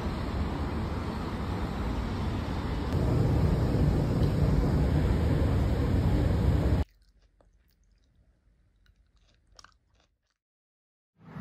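A steady loud rush of background noise that cuts off suddenly about seven seconds in. In the near quiet that follows come a few faint crisp bites into a soft stone fruit.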